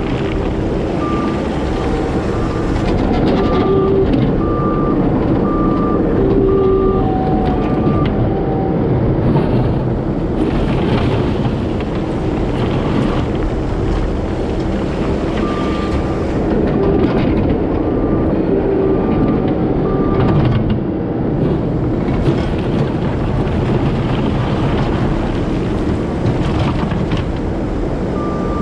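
Heavy diesel equipment running steadily under work, its back-up alarm beeping about once a second in two spells as the machine reverses.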